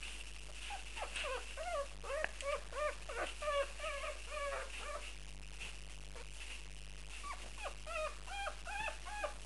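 Dogue de Bordeaux puppies, 38 days old, whimpering in quick runs of short, high calls: one bout from about a second in to about five seconds, and another from about seven seconds to near the end.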